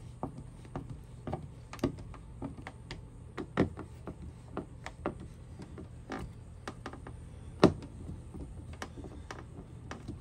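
Hand screwdriver turning screws into a plastic wall plate: irregular small clicks and ticks, a couple to several a second, with a few louder knocks, the loudest about two-thirds of the way through. A low steady hum runs underneath.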